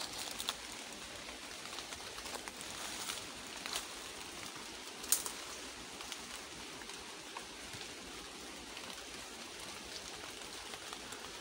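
Steady, faint forest background hiss with a few short sharp clicks, the sharpest about five seconds in.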